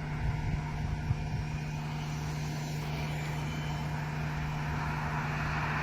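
Road traffic noise with a steady low hum, a passing vehicle growing louder toward the end.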